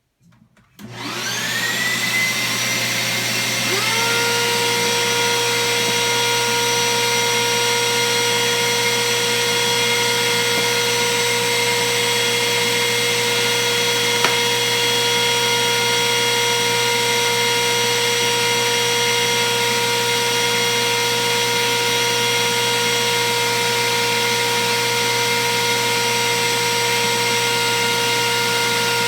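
Router motor switched on, its whine rising in pitch as it spins up to speed; a few seconds in a second motor spins up as well, and both then run on at a steady high pitch.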